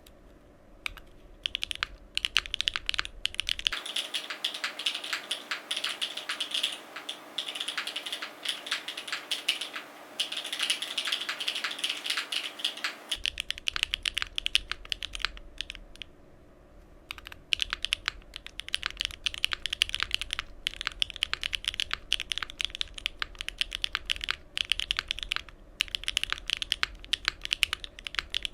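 Continuous fast typing on a gasket-mounted Cycle7 mechanical keyboard with an aluminium plate, stock Bsun Tai Chi linear switches and GMK Mecha 01 keycaps: a dense stream of keystroke clacks with a brief lull a little past halfway.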